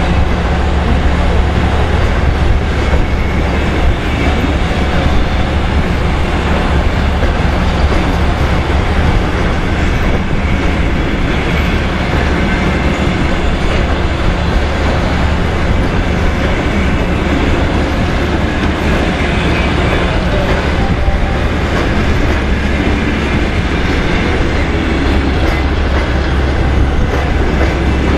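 Passenger coaches of a departing train rolling slowly past, steel wheels clicking over the rail joints over a steady low rumble.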